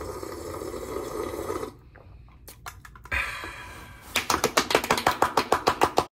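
Two people clapping quickly, about eight claps a second, over the last two seconds, cutting off suddenly. Before that, a person slurps soup broth from a plastic container.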